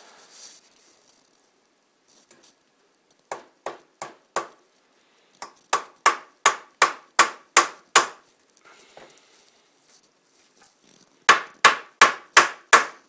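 Hammer driving small nails through the top bar into the side piece of a wooden Langstroth beehive frame. First come a few light setting taps, then two runs of quick, sharp strikes at about three a second.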